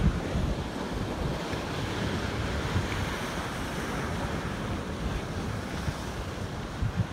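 Strong wind buffeting the microphone over the steady rush of rough, storm-driven waves breaking against a pier.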